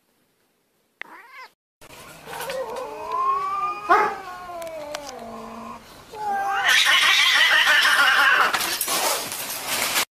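Two cats caterwauling at each other in a standoff: long wavering yowls that bend up and down in pitch, turning much louder and harsher about two-thirds of the way in.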